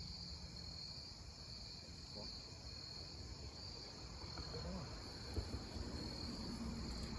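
Crickets and other night insects trilling steadily in a high, pulsing chorus, over a faint low rumble.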